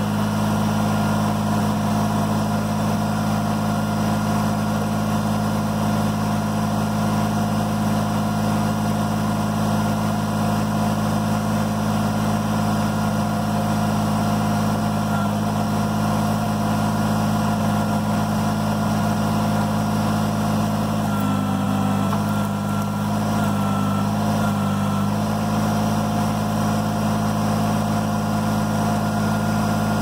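Kubota BX23S sub-compact tractor's three-cylinder diesel engine running steadily while driving the backhoe hydraulics. A little past the middle its note dips and wavers a few times as the backhoe and mechanical thumb take the weight of a log.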